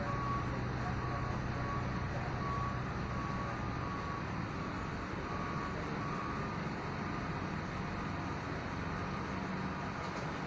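Steady drone of a large engine running, with a repeating electronic beep, about twice a second, like a reversing alarm, that stops about six seconds in.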